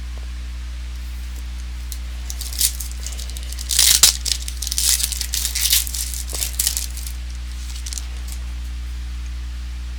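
Wrapper of a trading-card pack crinkling and tearing in a string of irregular bursts over a few seconds, loudest about four seconds in, over a steady low hum.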